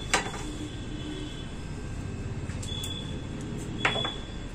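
Steady low background hum with a couple of sharp handling taps, one right at the start and one near the end, as samosa dough is folded and pressed by hand.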